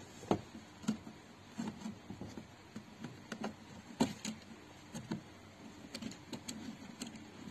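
Hands handling the plastic wiring connectors and harness inside a car door: light, irregular plastic clicks and small knocks, a few each second.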